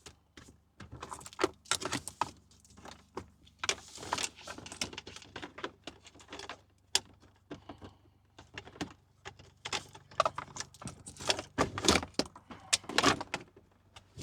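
Cables and plastic parts being handled and fed through a car dashboard: a run of light, irregular clicks, rattles and rustles, busiest near the end.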